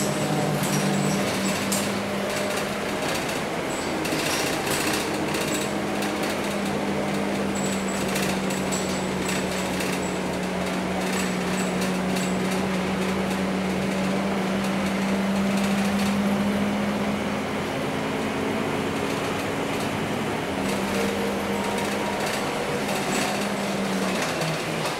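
Scania K230UB city bus heard from inside the passenger cabin on the move: its 9-litre five-cylinder diesel gives a steady drone that climbs slowly in pitch as the bus gathers speed, then dips about twenty seconds in. Interior panels and fittings rattle and click throughout.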